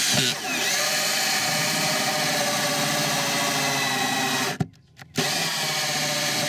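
Cordless drill cutting a hole through a trailer floor, its motor whine dipping briefly in pitch as it bites just after the start. It stops for about half a second a little past halfway, then starts again and keeps cutting.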